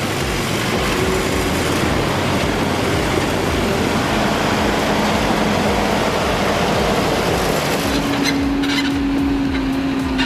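A heavy diesel engine of a logging truck or forestry machine running steadily, with an even low pulsing. Near the end the hiss thins and a steady hum comes in.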